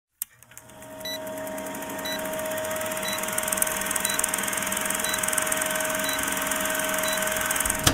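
Old-film countdown sound effect: a film projector running with a fast clatter and a steady hum, and a short high beep once a second, seven times. It fades in over the first second.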